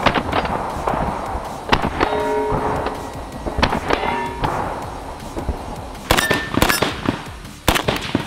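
Arsenal SLR-104, a semi-automatic 5.45×39mm AK-74-pattern rifle, firing about a dozen sharp shots, some single and some in quick strings of two to four.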